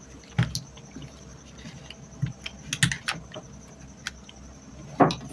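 Scattered light clicks and knocks from handling wires and plastic fan parts during the motor rewiring, with the loudest knock near the end.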